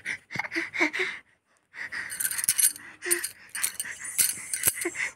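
Close mouth sounds: short breathy gasps and smacks, with clicking and rustling close to the microphone and a brief pause about a second in.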